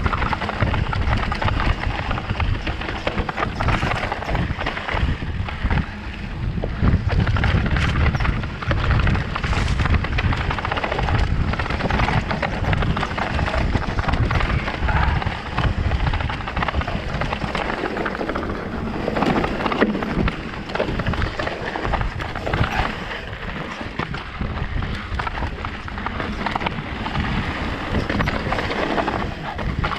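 E-mountain bike rolling downhill over a rough cobbled stone trail: constant wind rumble on the microphone with a dense clatter of tyres and bike knocking over the stones.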